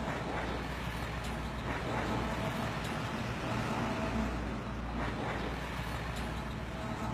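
Street traffic noise: a steady rumble of cars and engines.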